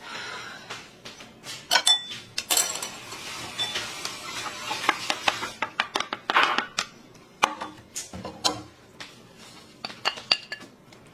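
Cutlery clinking and knocking against dishes during a meal, in scattered irregular taps.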